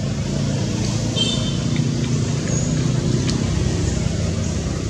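A motor vehicle engine running steadily as a low rumble, with a brief high chirp about a second in.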